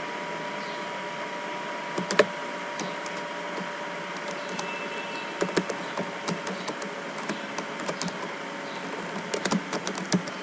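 A couple of mouse clicks about two seconds in, then computer keyboard typing from about halfway, irregular keystrokes that come faster near the end, over a steady low hiss and hum.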